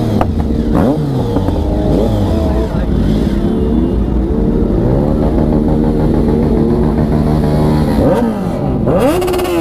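Sport motorcycle engine being revved while stationary: quick throttle blips that rise and fall back, then revs held steady for a few seconds, then two more sharp blips near the end.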